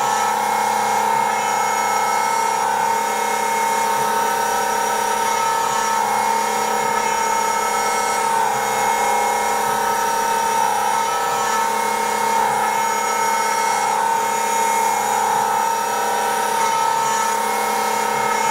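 Electric power tool running with a steady high whine, its pitch sagging briefly several times as it bites into the work.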